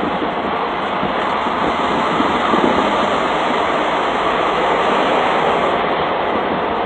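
Steady noise of an idling diesel truck close by, even and without separate beats.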